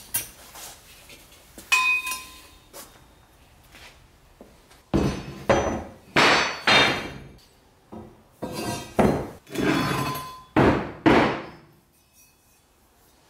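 Lengths of thick-walled steel square tubing clanking against each other and against a metal workbench as they are pulled from a stock rack and set down. There is one ringing knock about two seconds in, then a run of about eight loud clanks from about five seconds in, ending shortly before the end.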